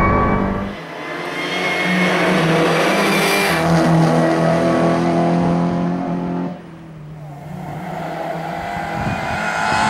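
Peugeot 308 Racing Cup's turbocharged four-cylinder engine at racing speed, its note rising and falling as the car is driven hard through the bends. The sound drops suddenly about a second in and again about six and a half seconds in, and it is quieter and building up again in the last few seconds.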